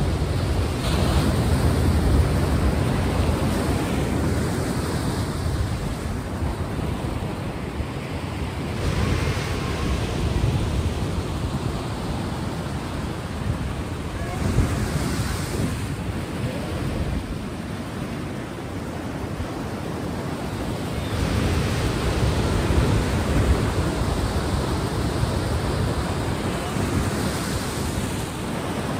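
Sea waves washing in on a shore, a steady rushing surf that swells and eases in slow surges every several seconds.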